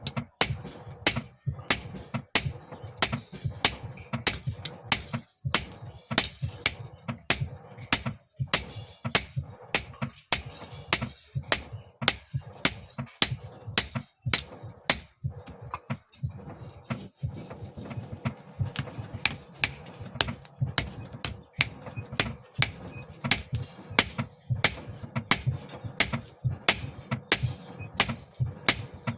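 Hammer blows on steel against an anvil, forging a file into a knife blade: steady, evenly spaced strikes at about two to three a second, each with a short metallic ring, over a steady low rumble.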